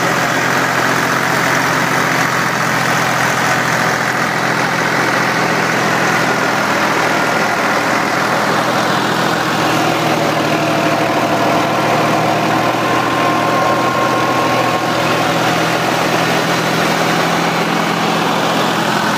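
New Holland tractor's diesel engine running steadily at an even speed, heard close to the open engine bay.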